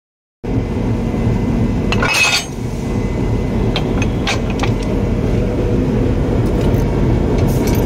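WDM3A diesel locomotive's engine running with a steady low rumble, over which the steel centre buffer coupler's lock lifter and parts clink as they are handled, with a short burst of clinking about two seconds in and single clicks after it.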